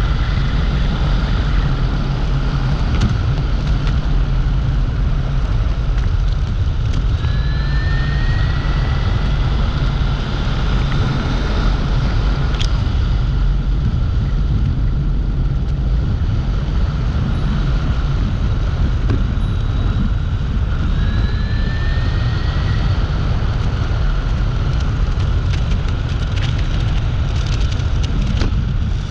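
Dualtron Compact electric scooter on the move: a constant heavy rumble of wind and road noise, with the hub motor's whine rising in pitch twice as the scooter accelerates, about a quarter of the way in and again about two-thirds through.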